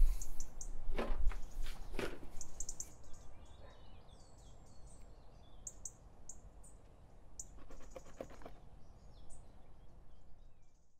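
Small birds chirping in short, high calls over a low background hum, with a couple of soft knocks about one and two seconds in.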